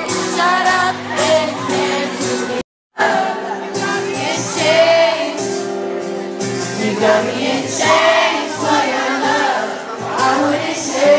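Live pop music with singing, heard from within the audience at a concert. The sound cuts out for a moment about three seconds in, then the music resumes.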